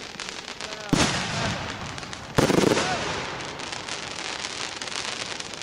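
Fireworks going off: two loud bangs about a second and a half apart, each fading off in a rumble, over a steady crackle.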